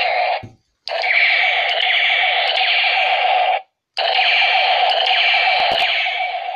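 Battery-powered toy AK-47 playing its tinny electronic sound effect through its small built-in speaker, in three bursts broken by two short pauses.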